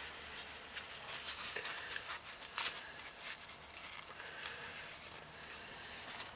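Faint, irregular clicks and light rattling of small turbocharger parts, spacers and bearings, being handled in a container of paint thinner.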